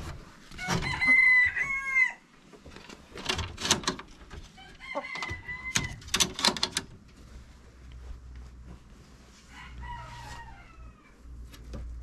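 Three rooster crows: a loud crow about a second in, another around five seconds, and a fainter one near ten seconds. Bursts of clattering knocks fall between them.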